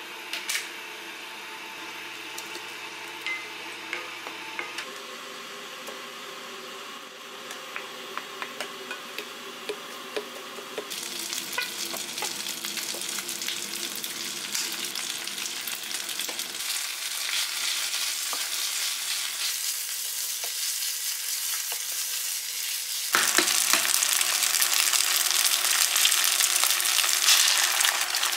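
Fried rice sizzling in hot oil in a pot, stirred with a wooden spatula that clicks and scrapes against the pot. The sizzle grows louder in two steps and is loudest over the last few seconds, as an egg fries among the rice.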